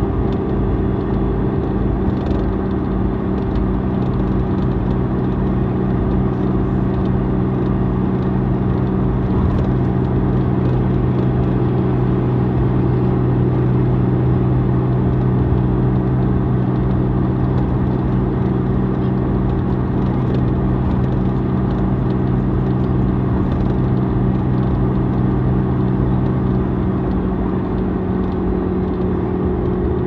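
Iveco Tector 6 six-cylinder diesel bus engine running steadily, a deep rumble with a constant hum, the pitch unchanging.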